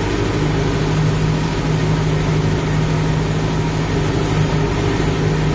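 Kubota MU5502 tractor's four-cylinder diesel engine running steadily under load, driving a rotavator through a flooded paddy, heard close up from the driver's seat.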